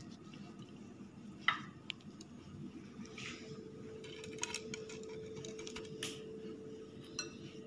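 Light kitchen handling as a breadcrumb-coated chicken patty is patted flat and set down on a plate: a few soft knocks and clicks, the sharpest about a second and a half in and again about six seconds in, over a steady low hum.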